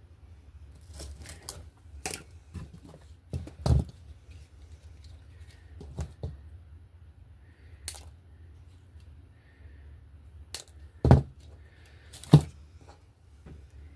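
Scattered taps, clicks and knocks of craft materials being handled and set down on a work table, with a few louder thumps about four seconds in and twice near the end, over a faint low hum.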